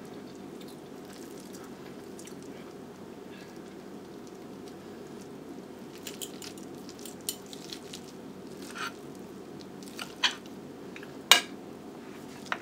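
Knife and fork cutting chicken on a ceramic plate: scattered light clinks and scrapes of steel cutlery on the plate, starting about six seconds in, the sharpest clink near the end. A steady low hum lies underneath.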